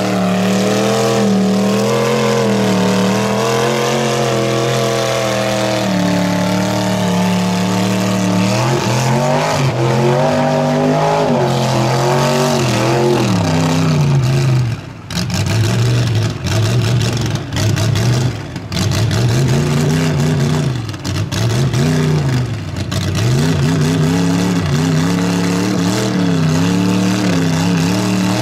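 Ford pickup mud truck's engine running hard at high revs while churning through thick mud, held steady at first, then revving up and down in repeated surges from about a third of the way in.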